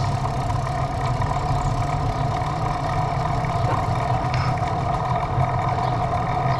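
A vehicle engine running steadily: a constant low drone with a steady higher hum over it.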